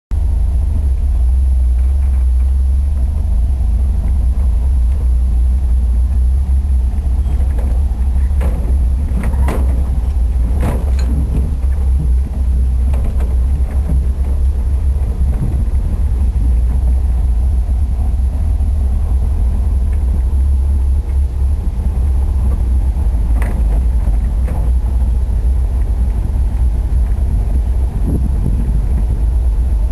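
An old bus driving off-road, a steady deep rumble from its engine and drivetrain. Sharp knocks and clunks come now and then, bunched around the middle of the stretch and again near the end.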